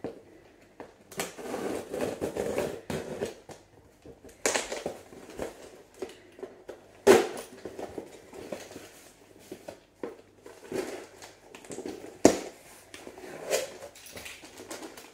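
A cardboard shipping box being opened by hand: packing tape cut and pulled, with the cardboard scraping and rustling in irregular bursts. Two sharp knocks stand out, about seven and twelve seconds in.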